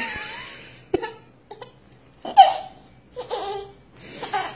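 A baby laughing in short repeated bursts, about one a second, the loudest a little over two seconds in.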